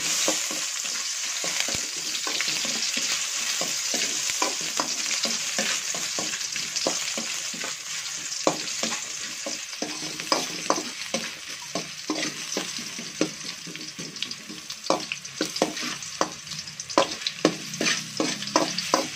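Ginger strips sizzling in hot oil in a stainless steel wok while a metal utensil stirs them, scraping and tapping against the pan. The sizzle is strongest at first and eases off about halfway through, while the taps come more often toward the end.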